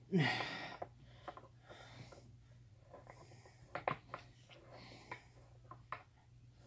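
A person's short breathy exhale with a falling pitch, like a snorting laugh or sigh, followed by a few light scattered clicks and taps over a faint steady low hum.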